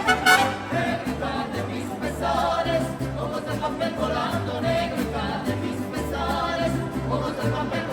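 Music with singing over a bass line that moves from note to note.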